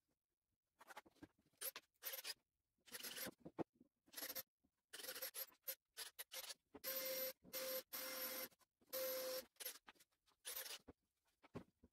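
Quiet, intermittent scratching and scraping of a pencil and plywood pieces being marked out and handled on a workbench, in short bursts with silent gaps between them.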